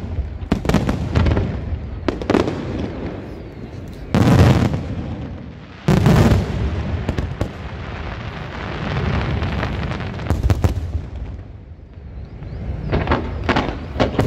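Aerial firework shells bursting in a string of booms and crackles, the two loudest booms about four and six seconds in and a cluster of sharp crackles near the end.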